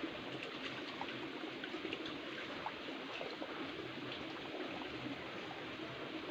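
Shallow rocky stream trickling steadily over stones, with scattered small drips and splashes.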